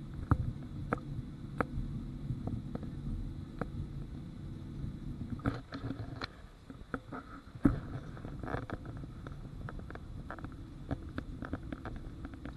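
Jet airliner cabin noise while taxiing after landing: a steady low rumble and hum with a faint high whine. Scattered clicks and knocks run through it, with a denser cluster of clicks and rustling between about five and nine seconds in.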